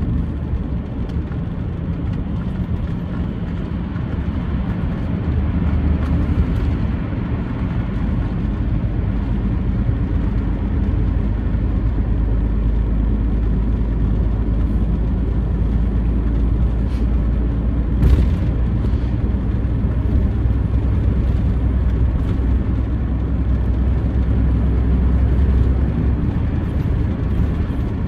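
Low, steady engine and road rumble inside a moving truck's cab, a little louder after about twelve seconds. A single short knock sounds about eighteen seconds in.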